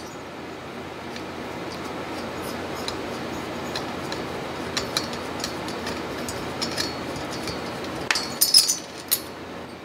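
A hand screwdriver turning out the steel cylinder-head screws of a DLE 55 gas engine: scattered light metallic ticks as the screws turn, then a quick cluster of sharper clinks about eight seconds in.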